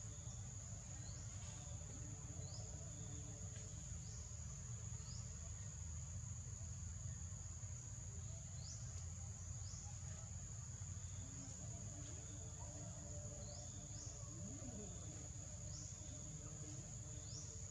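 Steady high-pitched insect chorus in the forest canopy, with short rising chirps repeating every second or so and a low rumble underneath.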